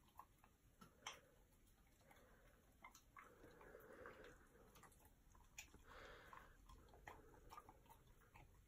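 Near silence with faint, irregular clicks and smacks: an Australian Shepherd chewing and licking a treat off a plate.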